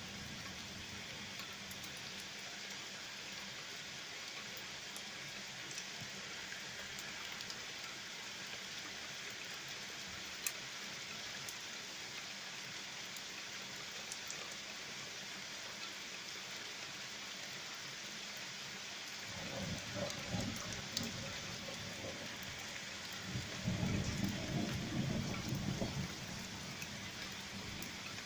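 Steady rain falling with an even hiss, joined by two low rolls of thunder, one about twenty seconds in and a longer, louder one a few seconds later.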